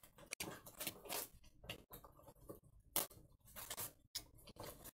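Foil-and-plastic wrapper of a trading card pack crinkling and rustling in gloved hands as it is handled and opened, in short irregular bursts.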